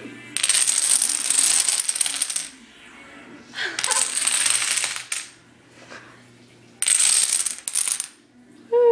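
Rows of dominoes toppling and clicking against each other and a tiled tabletop. The clatter comes in three fast runs of one to two seconds each, with short lulls between them.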